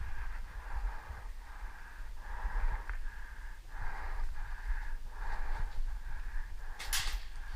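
A person breathing heavily in repeated wheezy in-and-out breaths, with a low rumble of wind on the microphone. A short sharp hiss comes near the end.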